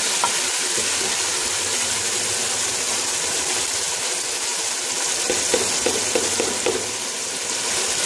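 Boneless chicken in a thick tomato masala sizzling steadily in a non-stick pot on the stove, stirred with a slotted spatula; the curry is almost cooked through. A few soft knocks come about five to seven seconds in.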